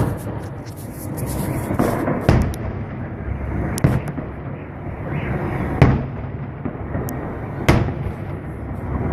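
Fireworks salute: aerial shells bursting with sharp bangs about every two seconds, with a thick crackle of smaller reports in the first two seconds over a continuous low rumble.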